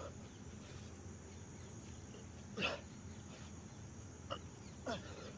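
Three short, sharp grunts of breath from a man doing fast push-ups, a few seconds apart, over a faint steady background.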